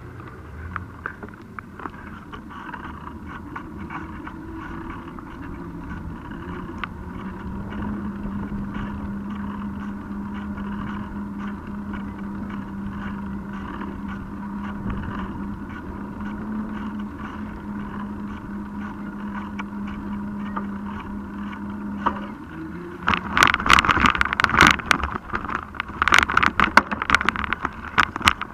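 Mountain bike ridden on pavement, heard through the handlebar-mounted camera: a steady tyre hum with constant small rattling clicks from the mount. About three-quarters of the way through the hum cuts off and loud, irregular knocking and crackling take over as the bike rolls onto bumpy grass.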